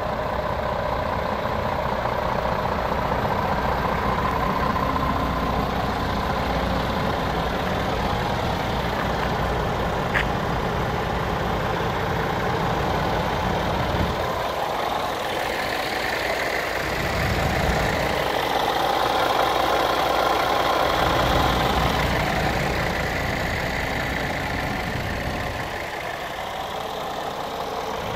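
Scania R410 tractor unit's 13-litre inline-six diesel idling steadily, its tone shifting partway through as the microphone moves along the cab toward the chassis.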